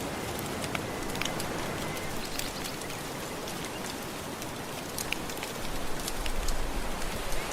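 Crackling fire with scattered sharp pops over a steady wash of gentle ocean waves, the wash swelling near the end.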